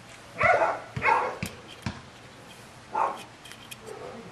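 A dog barking three times in short barks, over faint small metallic clicks as nuts are worked off an engine's exhaust studs by hand.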